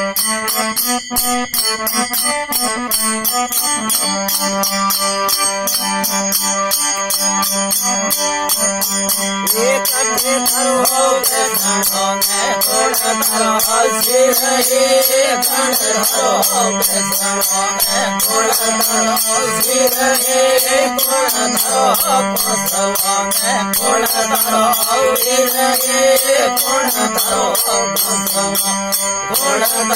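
Marwari folk music: a melodic instrumental line over fast, even jingling percussion, growing busier about a third of the way in.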